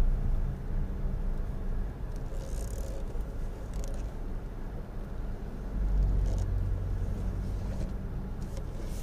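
Engine and road noise of a slowly moving vehicle, heard from inside the cab: a steady low rumble that grows louder about six seconds in.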